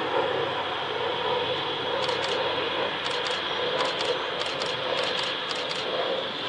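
Jet airliner engines giving a steady rushing noise, with a run of short high chirps, mostly in pairs, from about two seconds in.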